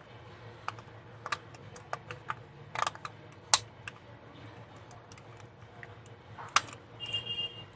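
Irregular small clicks and taps of the plastic body of a Sony Handycam camcorder being handled and its parts fitted together, with a brief high-pitched tone near the end.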